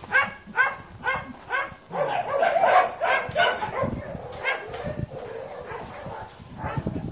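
Dogs barking: several short barks about half a second apart, then a denser run of barking about two seconds in, softer toward the end.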